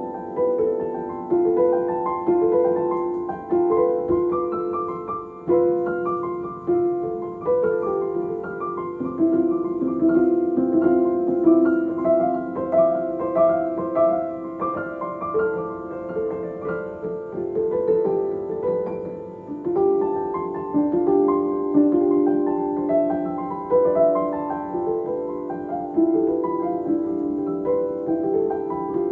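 Background piano music: a gentle melody of single notes and chords, each note fading after it is struck.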